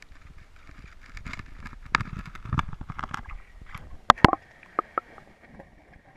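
Handling noise on an underwater camera: irregular clicks, knocks and dull thuds with water sloshing, loudest around the middle, over a faint steady hiss.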